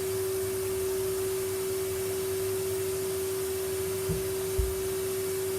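Henry canister vacuum cleaner running steadily, its motor giving a constant whine over the rush of suction, with two soft low knocks a little after four seconds in.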